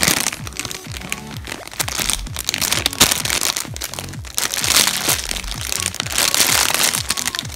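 Clear plastic packaging crinkling and rustling as a bagged squishy toy is handled, over background music with a steady low beat.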